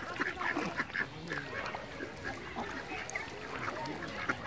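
Domestic ducks quacking, a steady run of short repeated calls.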